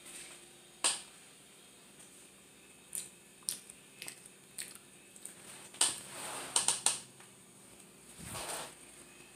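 A scattered series of sharp clicks and taps, several in quick succession a little past the middle, then a brief rustle near the end.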